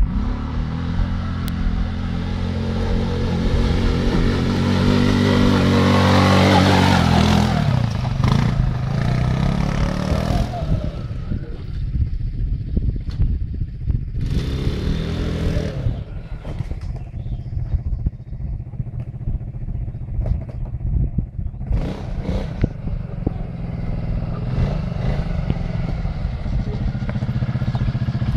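Quad bike (ATV) engine running and revving up and down as it is ridden, loudest about seven seconds in.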